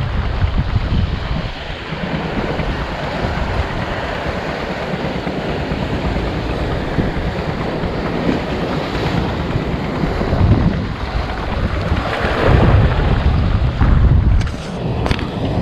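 Wind buffeting the microphone over the wash of sea waves against a breakwater, with a few sharp clicks near the end.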